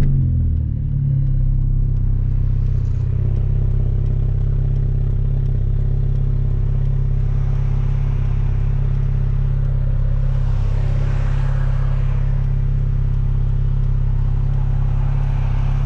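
Hyundai Veloster Turbo's 1.6-litre turbocharged four-cylinder with a catless downpipe, droning steadily at constant engine speed as the car cruises. A rushing noise swells briefly about ten seconds in.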